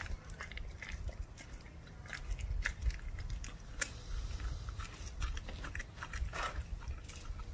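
German shepherd puppy chewing a raw chicken leg quarter: irregular bites and crunches on the meat and bone.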